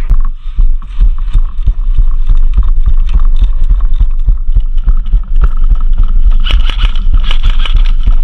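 Loud low rumble and buffeting on a body-worn microphone, with irregular knocks and clicks of handling and movement.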